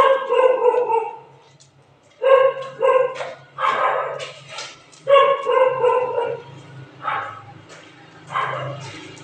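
A dog barking repeatedly, about eight short calls with the pitch dropping on each, some drawn out into yelps, over a faint low steady hum.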